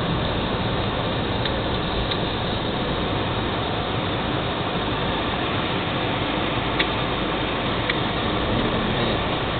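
Steady road and wind noise from a 2002 Chrysler PT Cruiser driving along, an even rushing with no rise or fall. Two faint short clicks come about a second apart in the second half.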